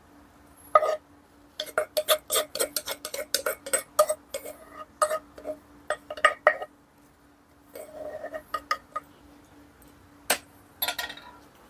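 Dishes and kitchen utensils clinking and knocking in irregular sharp taps, with a quick run of about five taps a second in the first few seconds. A faint steady hum sits underneath.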